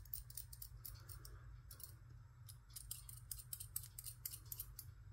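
Faint, rapid crisp clicks in irregular clusters from small hand-work on a model-rocket parachute's rigging, gathering the nylon shroud lines.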